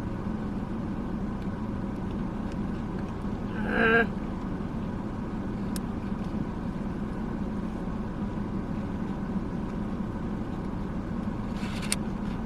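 Steady low hum of an idling car heard from inside the cabin, with a short vocal sound about four seconds in and a sharp click near the end.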